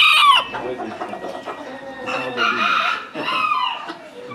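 Bantam roosters crowing. A loud crow ends with a falling tail just after the start, then fainter crows from other birds follow about two to three and a half seconds in.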